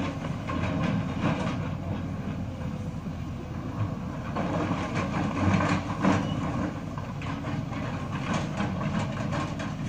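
Lonking hydraulic excavator's diesel engine running steadily under load, with irregular clattering and knocks of rock as the bucket works the rubble.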